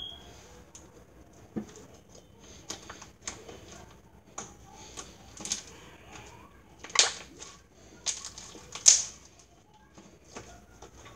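Homemade slime with olive oil worked into it being kneaded and stretched by hand, giving irregular squishy clicks and pops; the two loudest pops come about seven and nine seconds in.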